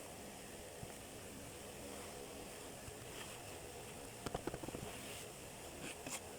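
Kinetic sand being handled and cut: a quick run of small clicks and crunches a little past four seconds in and a few more near the end, over a faint steady hiss.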